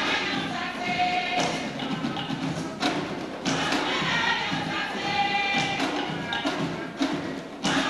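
Live Garifuna dance music: large hand drums beating under group singing.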